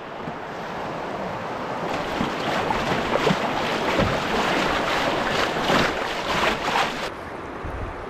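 River water rushing and splashing around a canoe, with wind buffeting the microphone. The splashing builds from about two seconds in and stops suddenly near the end.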